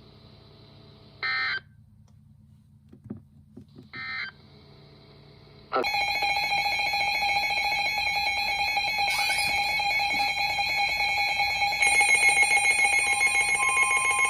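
Two short digital data bursts of an Emergency Alert System message, then a loud, steady electronic alert tone from about six seconds in. A second, higher tone joins near the end.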